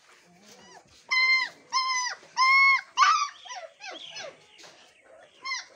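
Mixed-breed puppies whining: four high, drawn-out whines in quick succession about a second in, then fainter whimpers and one short whine near the end.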